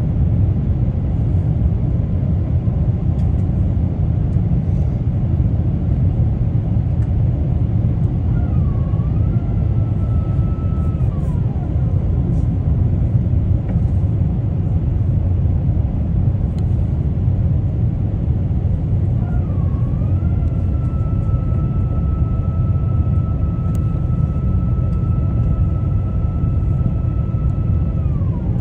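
Steady low rumble of an airliner cabin on approach. Twice a high motor whine starts with a dip, holds a steady pitch, then winds down: about three seconds the first time and about eight seconds the second. This is the flap and slat drive extending the high-lift devices for landing.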